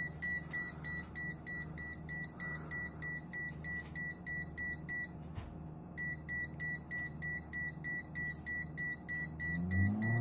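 Touchscreen PC fan controller sounding a rapid alarm beep, about three to four high beeps a second, with a short pause about five seconds in. The beeping stops near the end as the fans are set to full speed and their low hum rises. The alarm comes on at lower fan speed, which the owner guesses is because fans 1 and 2 are four-wire fans.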